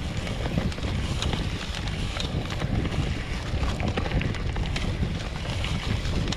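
Wind rushing over an action camera's microphone on the handlebars of a Polygon Bend R2 gravel bike, with the rattle and many small clicks of the bike rolling over a bumpy grassy single track.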